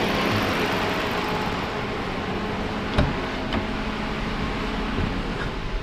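Dodge Charger engine idling with its electric radiator cooling fan running, a steady hum and rush. Two sharp clicks come about three seconds in.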